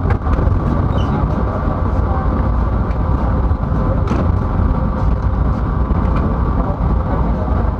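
Steady rumble of a passenger train carriage running along the rails, heard from inside the coach, with a faint steady hum above it.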